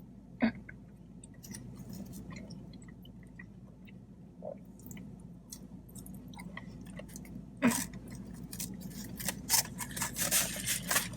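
Close-miked chewing of fried chicken fingers: moist, crackly mouth sounds that grow denser and louder over the last few seconds. Two sharp clicks stand out, one about half a second in and one near the eight-second mark.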